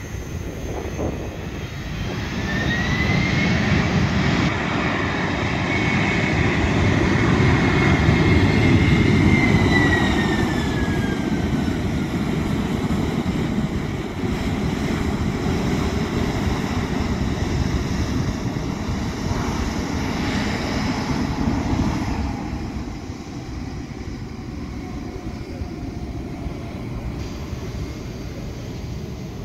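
Boeing 767-300 freighter's twin turbofan jet engines at high power, moving past: a deep rumble with a whine that rises about two seconds in, holds, then drops in pitch about ten seconds in as the plane goes by. The rumble eases gradually through the second half.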